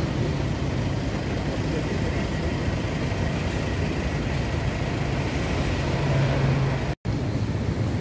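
Steady rumble of surf from the beach mixed with the low hum of vehicle engines close by. The sound cuts out for an instant about seven seconds in.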